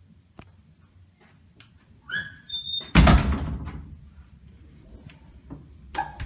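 Hotel closet door pushed shut: a brief high squeak, then a loud thud about three seconds in as it closes, with a few light clicks around it.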